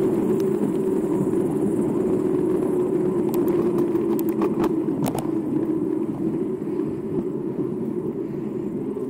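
Mountain bike tyres rolling on asphalt, giving a steady road hum, with a few short rattling clicks from the bike about three to five seconds in.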